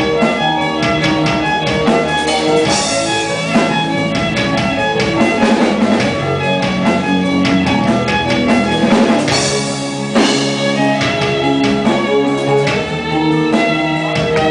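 Live band music: a violin playing a melody over guitar, with drums.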